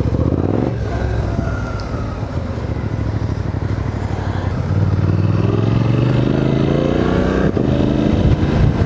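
Suzuki V-Strom 800DE's parallel-twin engine under way: the revs rise briefly right at the start, then climb steadily from about four and a half seconds in and drop suddenly near the end at a gear change, after which the engine pulls on.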